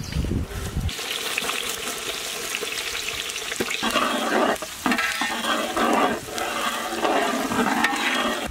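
Chopped onions tipped into hot oil in a large pot start sizzling about a second in, stirred with a perforated ladle. The frying gets louder from about four seconds in.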